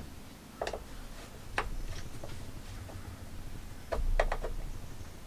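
A few light clicks and knocks of chainsaw parts being handled on a workbench: one single click, then another, then a quick group of three near the end.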